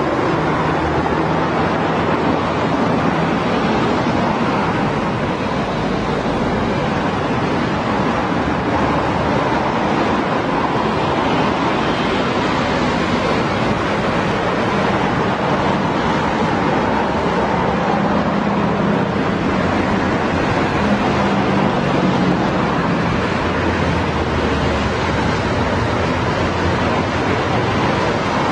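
Continuous road traffic noise: a steady wash of passing cars and motorbikes, with a low engine hum coming up for a few seconds about two-thirds of the way through.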